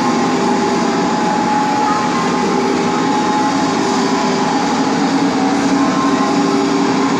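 Steady din of a large crowd filling a big reverberant indoor hall, many voices blended into one loud, even wash.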